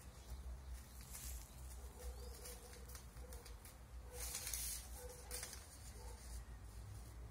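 Newspaper pieces rustling as they are picked up and handled, in short bursts about a second in and again around four to five seconds in. Under them runs a low steady rumble, and faint repeated low bird calls come through in the middle.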